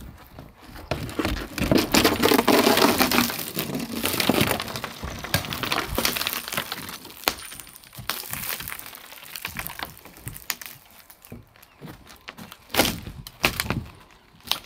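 Old plywood roof decking being levered up, the wood cracking and splintering. There is a dense run of cracks and scraping in the first few seconds and two sharp loud cracks near the end.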